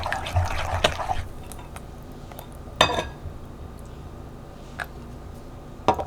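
Small household handling sounds: a second of scuffling, then about three separate sharp clinks or knocks, like dishes or utensils being set down.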